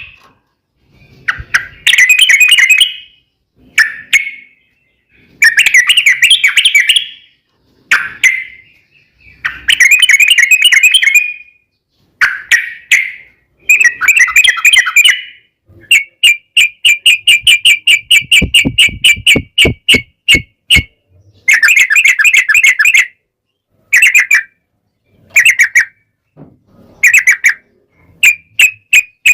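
Yellow-vented bulbul (trucukan) singing in loud bubbly phrases of one to two seconds with short pauses. In the middle comes a longer run of fast, evenly repeated notes, about five seconds long: the rapid continuous 'ropel' song.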